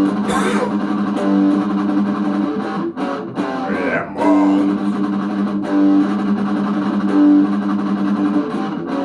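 A song with guitars playing over a bass line, a singer calling out "Ремонт" once about halfway through.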